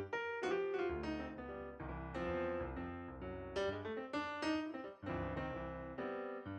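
Background music: piano, a melody of struck notes over a repeating bass note.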